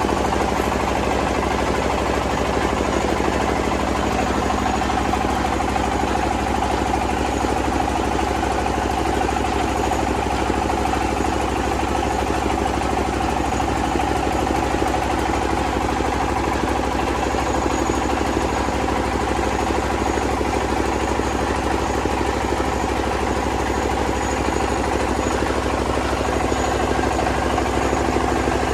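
Rice milling machine running steadily.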